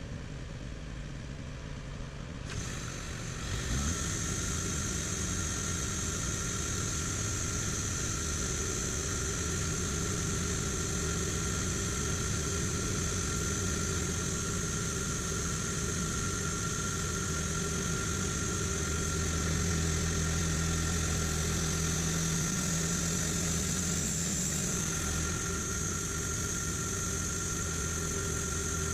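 Portable bandsaw sawmill running steadily: an engine rumble joined about three seconds in by a high, steady whine that then holds.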